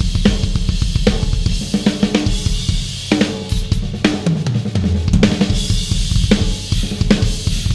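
Yamaha Stage Custom Birch and Stage Custom Hip drum kit played at full groove: bass drum, snare and cymbals. Midway through, a tom fill steps down in pitch from the higher toms to the floor tom.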